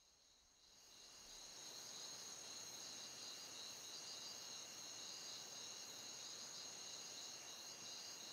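Crickets chirping in a steady, high-pitched night chorus, fading in about a second in.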